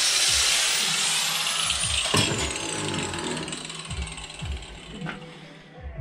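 Angle grinder grinding down the steel teeth of a worn two-stroke moped kickstart ratchet held in a vise. The harsh grinding noise slowly fades as a high whine falls in pitch over the first few seconds, the disc spinning down. A few light knocks of handling follow near the end.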